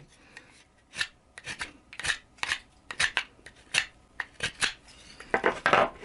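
Abalone-handled VG-10 san-mai folding pocket knife cutting into a block of wood against the grain: about a dozen short scraping strokes, some in quick pairs and triplets, as the edge is tested for bite.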